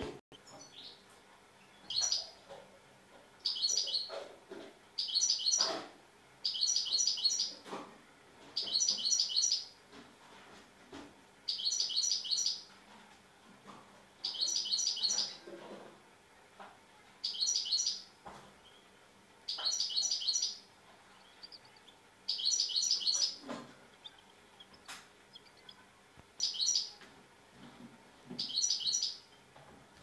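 Caged European goldfinch singing: about a dozen short bursts of high, rapid twittering, each around a second long, with pauses of a second or two between them.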